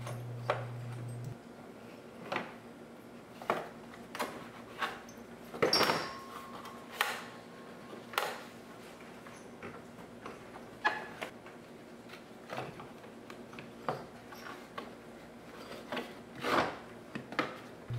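Radiator fan blade and fan clutch being worked up through the engine bay by hand: scattered knocks, clunks and scrapes as they bump against surrounding parts, the loudest about six seconds in. A low steady hum cuts off about a second in.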